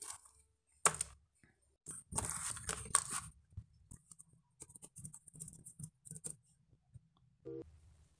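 Close, quiet handling sounds: a sharp click about a second in, a rustling tear from about two to three seconds in, then a scatter of light taps.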